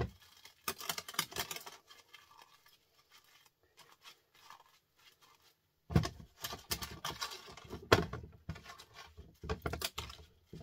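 Small pieces of scrap copper from stripped transformers clinking and rattling as they are handled and dropped into a plastic tub. The clatter is sparse at first and becomes busier about six seconds in.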